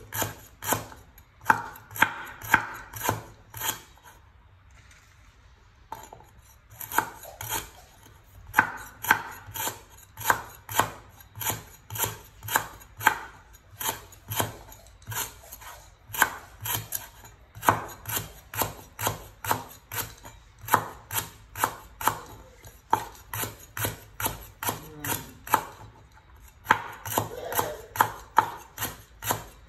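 A cleaver slicing lemongrass stalks into thin rounds on a wooden cutting board: sharp chops about two to three a second, with a pause of about two seconds near the start.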